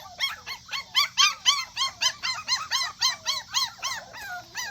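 Several young puppies crying in quick, high whimpering yelps, about four or five short rising-and-falling cries a second, some overlapping.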